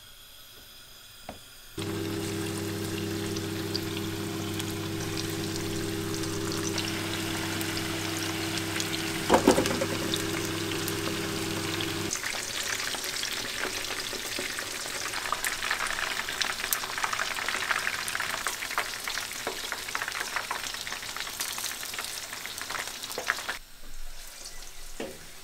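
Gram-flour-coated marinated chicken pieces deep-frying in hot oil: a steady hiss with crackling pops. For about the first half a steady low hum sits under it, and there is one sharp knock partway through.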